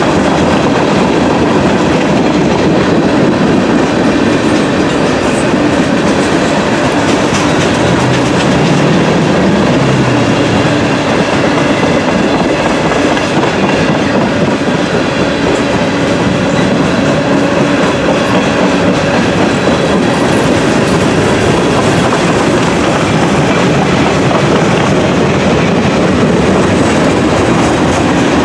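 A long freight train's tank cars and covered hoppers rolling past close by: a steady, loud rumble of steel wheels on the rails, with clicking as the wheels pass over the rail joints.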